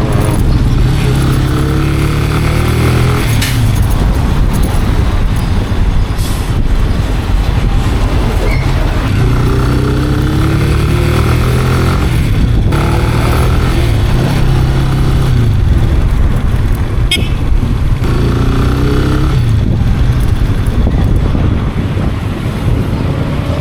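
Italika RC 250 motorcycle engine under way, its revs climbing three times as it pulls up through the gears. Heavy wind noise on the microphone runs underneath.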